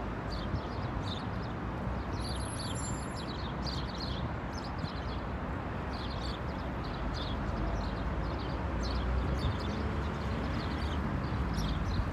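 Small birds chirping repeatedly in short, high calls over a steady rushing background.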